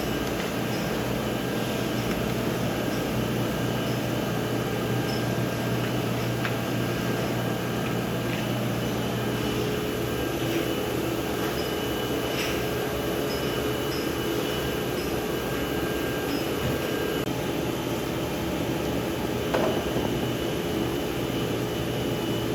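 Jam-factory production machinery running with a steady hum, faint scattered ticks and a brief clunk near the end.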